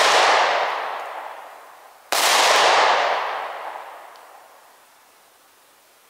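A pistol shot fired about two seconds in. Its report rings out and fades over a couple of seconds, following the fading tail of a shot fired just before.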